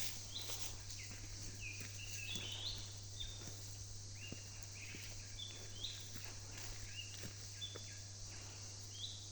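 Several birds chirping over and over, short calls each ending in an upward flick, against a steady high hiss.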